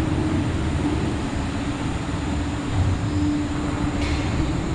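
Wuppertal Schwebebahn suspended train running through the station: a steady rumble with a low hum that comes and goes.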